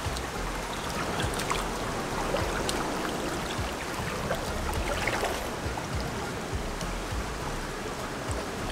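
Small river running over rocks: a steady rush of flowing water, with a few faint clicks.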